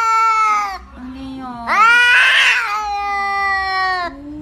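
Domestic cat meowing in long, drawn-out calls. A call ends just under a second in, a short lower call follows, then a loud call of about two seconds rises in pitch at its start.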